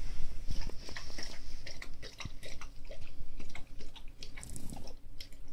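Guinea pig chewing close to the microphone: small, irregular clicks and crunches from its mouth.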